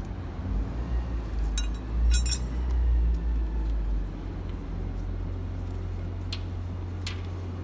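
Metal clinking of hand tools and hydraulic hose fittings being handled, a quick cluster of ringing clinks about one and a half to two and a half seconds in and a couple of lighter ticks near the end, over a steady low rumble.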